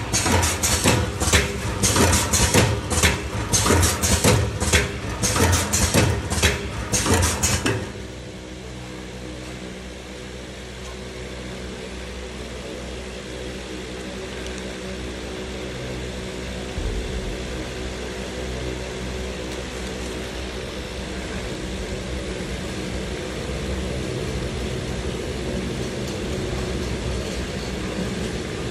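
Automatic stick-pack filling and sealing machine cycling, a rapid run of rhythmic mechanical clacks from its sealing and cutting stroke. About eight seconds in the clacking stops, leaving a steady machine hum.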